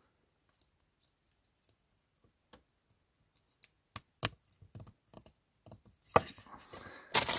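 Hard plastic LEGO elephant parts handled and pressed together: scattered light clicks and taps, with two sharper clicks about four seconds in. Louder rustling starts near the end.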